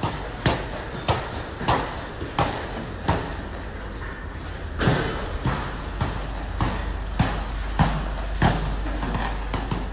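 Workout impacts on a padded gym mat, such as heavy battle ropes slapping down or feet landing, giving a regular run of thumps a little under two a second, with a short break about halfway through.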